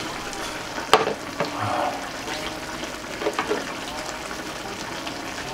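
Beef bulgogi broth bubbling in an electric hot pot, a steady hiss. A sharp clink of a spoon against a bowl comes about a second in, with a few lighter utensil knocks later.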